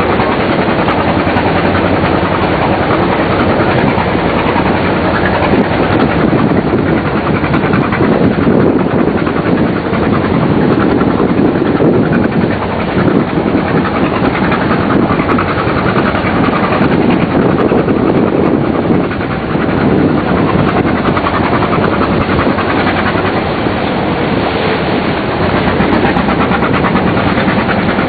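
Small boat's engine running steadily, heard from on board.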